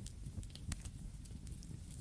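Campfire burning with a low steady rumble of flames and scattered sharp crackles and pops of burning wood, one louder pop about two thirds of a second in.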